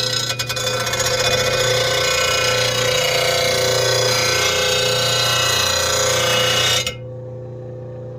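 Steel mower blade being ground on the spinning wheel of an RBG-712 blade sharpener: a loud, steady grinding hiss for about seven seconds that cuts off abruptly when the blade is lifted away. After that only the machine's steady hum is left.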